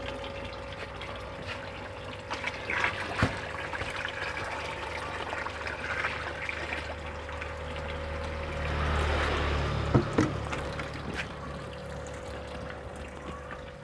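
Liquid fertilizer, fermented rabbit urine, poured in a steady stream from a plastic tub into a fish pond, splashing into the water. The pour grows louder about nine seconds in, with a couple of sharp knocks, one about three seconds in and one about ten seconds in.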